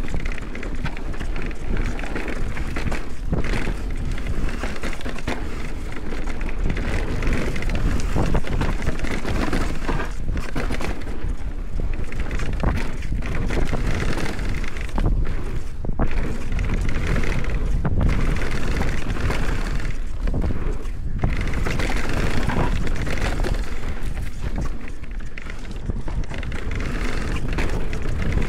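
Mountain bike ridden downhill on a rough bike-park trail: wind rushing over the microphone, tyre noise from the trail surface, and frequent rattling clicks from the bike.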